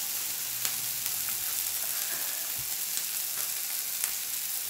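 Beef satay skewers basted with a sweet soy sauce mixture, sizzling on a tabletop grill plate: a steady hiss with a few small pops.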